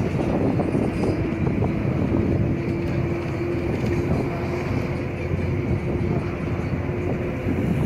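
Bus engine and road noise heard from inside a moving bus on a hill road: a steady rumble with a faint steady hum.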